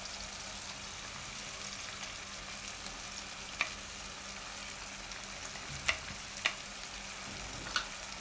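Chicken mince and spinach paste sizzling steadily in hot oil in a nonstick pan, with a few light clicks of kitchen utensils in the second half.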